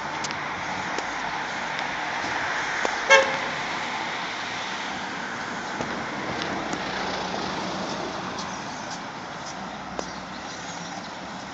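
Street traffic: a steady hum of passing cars, with one short car-horn toot about three seconds in.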